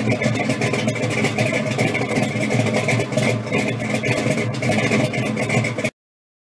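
A car engine idling steadily, then cutting off suddenly near the end.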